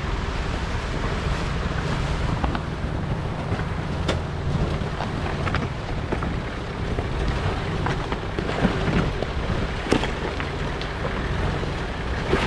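A Nissan Patrol 4WD's engine running low and steady as it crawls over rocks in a creek bed, with occasional sharp knocks and crunches from the tyres and underbody on stones. Wind buffets the microphone.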